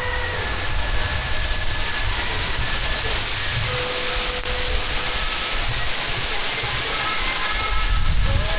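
A steady, loud hiss with no break, strongest in the treble, with a few faint steady tones beneath it.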